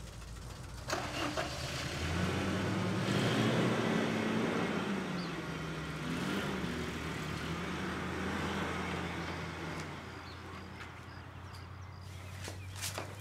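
Car engine running, growing louder over a couple of seconds and then slowly fading, its pitch wavering a little.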